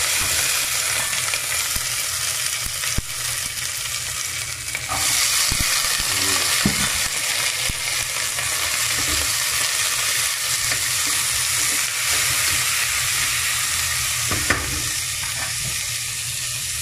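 Hot coconut oil sizzling in a pan as green chillies, curry leaves and chopped onions fry and are stirred with a wooden spatula. The sizzle grows louder about five seconds in, and a few short knocks of the spatula against the pan sound through it.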